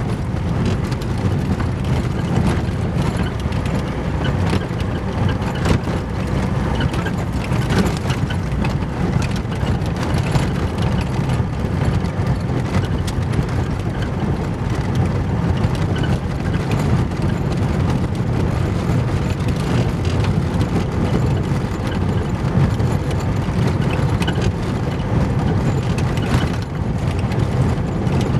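Car driving on a loose gravel road, heard from inside the cabin: a steady low rumble of tyres on gravel with frequent small clicks of stones striking the underbody.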